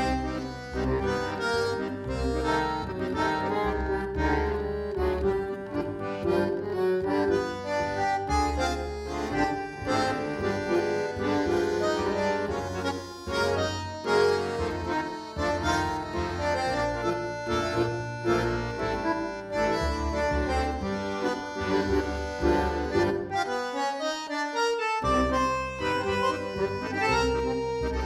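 Background tango music led by an accordion over a rhythmic bass line; the bass drops out for about a second a few seconds before the end.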